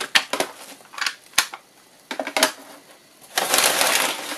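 Packing material being handled: several sharp clicks and taps, then from about three and a half seconds in a dense crinkling and rustling of the wrapping.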